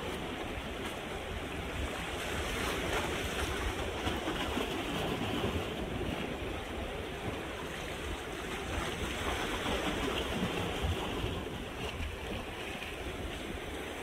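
Small sea waves washing and lapping against large rocks of a boulder breakwater, a continuous wash of water that swells and eases.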